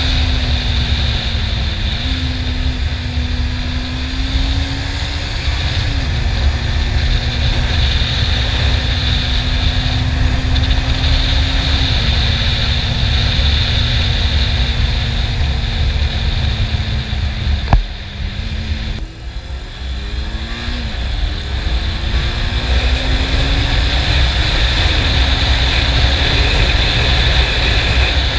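Honda CB400 Super Four's inline-four engine running at road speed, heavily overlaid by wind buffeting on a helmet camera. The engine note holds fairly steady with a few small steps, dips briefly after a click about two-thirds of the way in, then climbs again in several short rising pulls as it works up through the gears.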